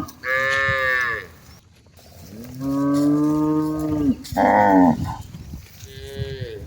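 Cattle mooing: four calls in turn at different pitches, from more than one cow, the longest drawn out for about two seconds in the middle.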